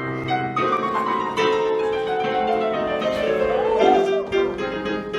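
Piano accompaniment for a music hall song, playing between sung verses. Over it runs one long note that slides down in pitch for about three seconds, followed by a short upward-and-back swoop.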